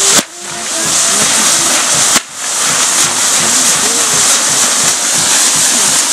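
Fireworks castle burning: a loud, steady hiss of spark fountains and spinning fire wheels, with two sharp bangs, one just after the start and another about two seconds in.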